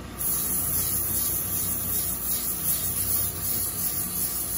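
Emery cloth pressed against a brake rotor spinning on an Accu-Turn brake lathe: a steady high sanding hiss that starts abruptly just after the beginning, over the lathe's steady motor hum. The abrasive is putting a crosshatch (non-directional) finish on the freshly turned rotor.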